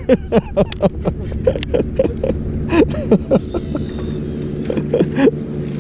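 Fishing boat's engine idling with a steady low hum, under short scattered bits of anglers' voices on deck and a few sharp clicks.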